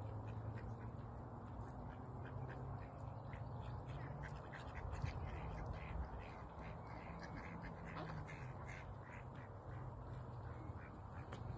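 Mallard ducks quacking, a scattered run of short calls.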